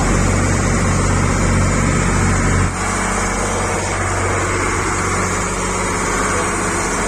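Passenger boat's diesel engine running steadily with a deep hum. A little under three seconds in, the low hum drops abruptly and the sound becomes slightly quieter.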